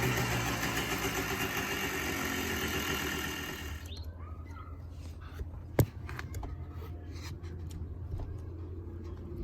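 Yamaha Blaster's single-cylinder two-stroke engine dropping from a rev to a steady idle. About four seconds in, the engine sound cuts off abruptly, leaving a low steady hum and one sharp click a couple of seconds later.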